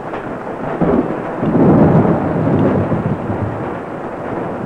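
Thunder rumbling: a low roll that swells about a second in, peaks, then eases off over a steady hiss.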